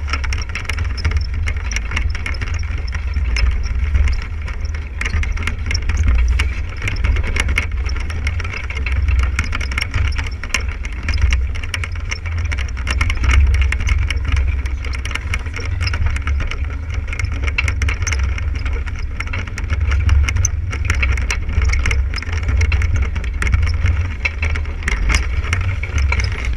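Wind buffeting the camera microphone in gusts, with water rushing and splashing along the hull of a sailboat under sail.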